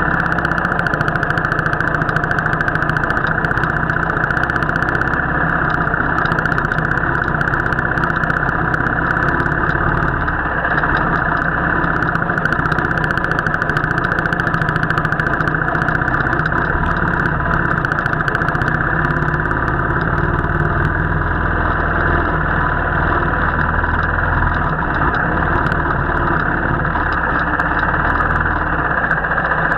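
Royal Enfield motorcycle engine running steadily on a ride, with no break in the sound.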